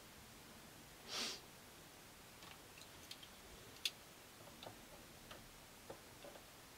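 Faint scattered light clicks and ticks of a small metal hand tool working around a stopped mini lathe's tool post and swarf, the sharpest about four seconds in. A short soft hiss comes about a second in.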